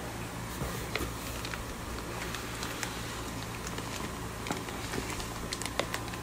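Scattered light clicks and crinkles of cardboard boxes and plastic fish bags being handled, growing busier near the end as a bag is lifted out, over a steady low hum.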